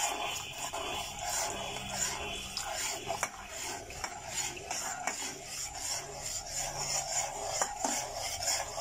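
Metal spoon stirring and scraping around a metal saucepan of hot milk, in repeated strokes with a few sharp clicks against the pan. The mixture is being stirred without pause as the strawberry custard paste goes in, so that it does not catch on the bottom.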